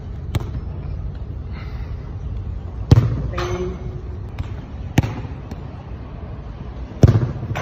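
A football being kicked: four sharp thuds about two seconds apart, passes and shots in a shooting drill. The loudest kicks come about three seconds in and near the end.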